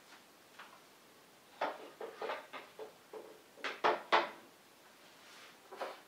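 A run of light knocks and clinks as metal espresso gear such as the portafilter is handled and set down, about ten in two and a half seconds with a short metallic ring on some, and one more near the end.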